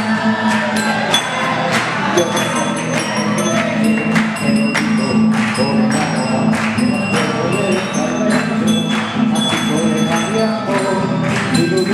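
Live music with a steady beat of sharp percussive strikes, a sustained low note underneath and thin, bell-like high tones ringing above.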